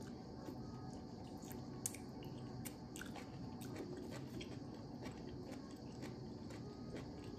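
Close-up eating sounds: a person chewing semovita and white soup with meat, with scattered wet mouth clicks and lip smacks, the sharpest about two seconds in.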